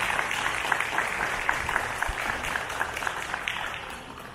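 Audience applauding, the clapping thinning and fading out in the last second.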